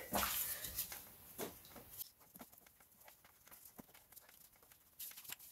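Faint rustling and a few scattered light clicks and taps of gloved hands and tools handling parts around a diesel engine's EGR valve, mostly quiet between them.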